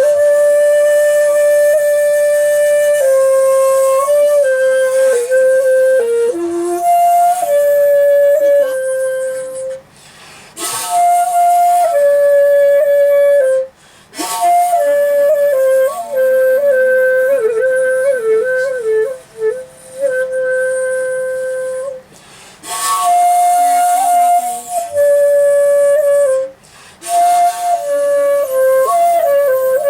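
Solo komuso-style shakuhachi playing slow, long held notes with a breathy tone and wavering pitch bends, in phrases broken by short pauses for breath.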